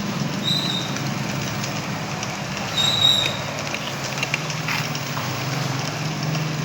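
Homemade peanut grinder running: a 200-watt electric motor turning a no. 12 grinding mill through a washing-machine gearbox. It gives a steady low hum with many small clicks as the peanuts are ground, and runs smoothly and quietly. Two brief high tones sound about half a second and three seconds in.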